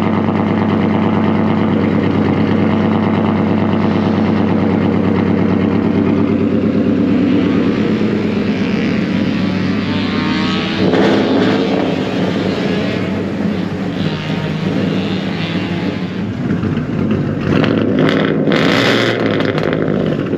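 Ford Mustang engine idling at the exhaust tip, just after being started, with a short rise in revs about halfway through.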